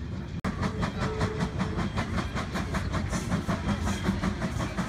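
Small steam switcher locomotive working a passenger car at low speed, a fast even rhythm of about five beats a second over a steady low rumble. It starts after a brief break about half a second in.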